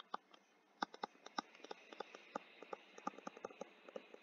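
Stylus tip clicking and tapping on a tablet screen during handwriting: faint, irregular clicks, a few at first and then several a second from about a second in.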